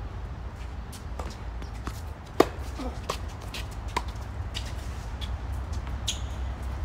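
Tennis ball being struck by rackets and bouncing on a hard court during a doubles rally: a series of sharp pops a second or so apart, the loudest about two and a half seconds in, over a steady low rumble.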